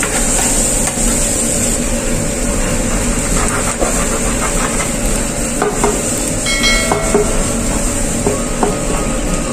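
Diced onion sizzling as it sautés in a frying pan, with a metal spoon stirring and scraping against the pan in scattered clicks. A brief ringing tone sounds about two-thirds of the way in.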